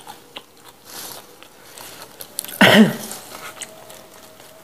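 Close-up mouth sounds of someone biting and chewing raw leafy greens (lalapan), with small crisp crunches and clicks. A short loud vocal sound breaks in about two and a half seconds in.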